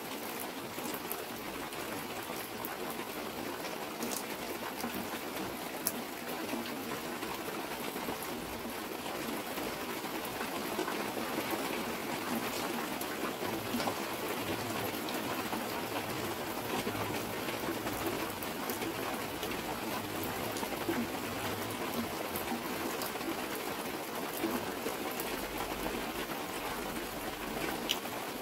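Steady rain, with water streaming down a clear plastic sheet close by and scattered sharp drop ticks; it grows slightly louder about ten seconds in.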